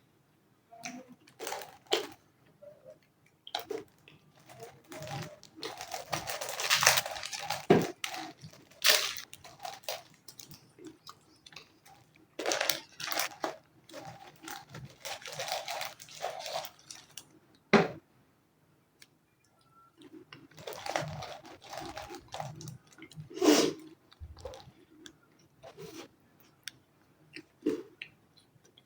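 Close-miked eating of a chicken anda shami burger: bites and crunchy chewing come in several bursts, with quieter pauses between mouthfuls.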